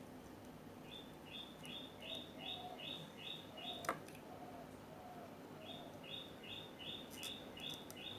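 An animal's chirping call in two runs of about eight quick, even chirps each, with a sharp click between them just before the middle. A faint steady hum runs underneath.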